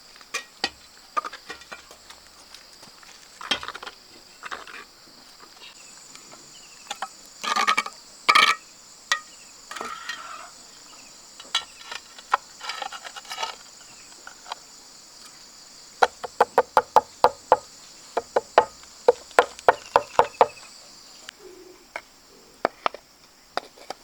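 Insects chirring steadily in the background, with scattered knocks and, past the middle, a quick run of about twenty sharp strikes at roughly five a second.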